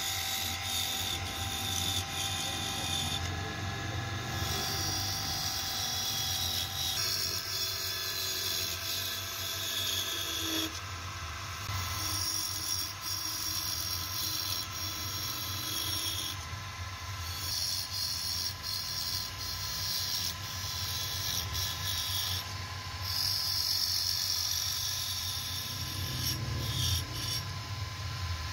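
Belt-driven wood lathe running with a steady hum while a long chisel cuts into the spinning wooden blank. The scraping hiss of the cut comes and goes in several passes of a few seconds each as grooves are turned.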